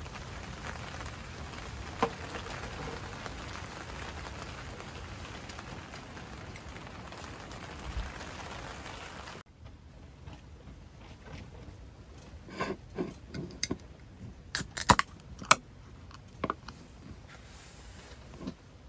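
Steady rain hiss for about nine seconds. It then cuts off suddenly to a quieter background with a scattering of sharp knocks and clicks.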